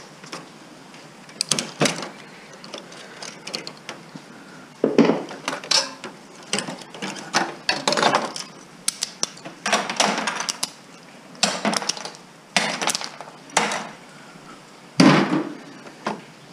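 Hand tools clicking, scraping and clanking against the steel chassis and parts of a desktop computer tower being taken apart for scrap, in irregular bursts with short pauses.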